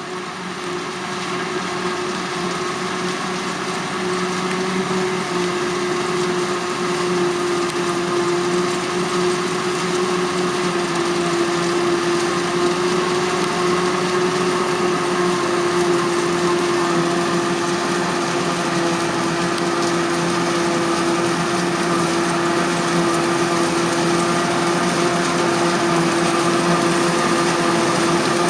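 Krone BiG X 530 forage harvester running at constant high revs while chopping maize, a steady machine whine with a strong held tone, growing gradually louder over the first several seconds as it comes closer.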